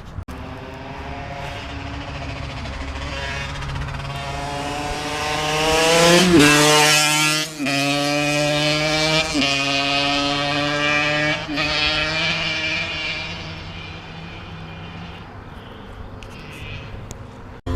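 A motor vehicle engine accelerating, its pitch climbing and dropping back at each of several gear changes. It is loudest about six seconds in and then fades away.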